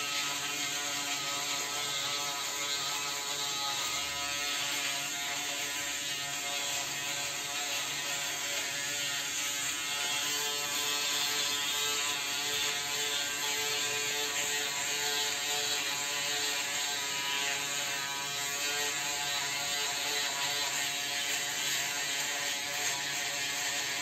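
Braun Series 3 ProSkin 3010s electric foil shaver running steadily, its motor buzzing as it is worked in small circles over two-day stubble, cutting the whiskers.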